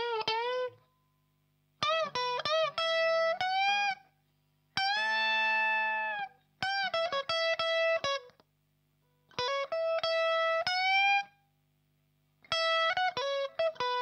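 Fender Rocky Stratocaster played through a THD Univalve amp with a KT88 tube into a Marshall cabinet with Celestion G12-K100 speakers: short single-note lead phrases with string bends and vibrato, one of them a long held note, separated by pauses of about a second. A faint steady hum sits under the pauses.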